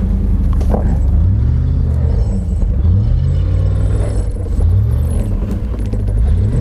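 Land Rover Discovery 1's 3.9-litre petrol V8 revving hard as the off-roader climbs a steep muddy rut. The revs rise and fall back four or five times as the throttle is worked to keep the truck climbing.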